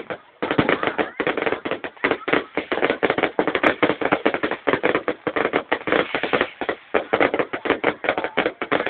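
Fireworks going off in a dense, continuous crackle of rapid bangs, many every second, after a brief lull at the very start.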